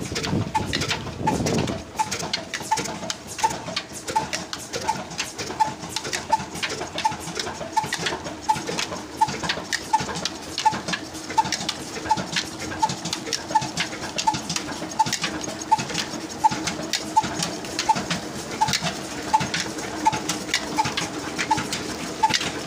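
Ruston 35 HP stationary diesel engine running slowly and steadily, a regular beat about three times every two seconds, while it drives a belt-driven irrigation water pump.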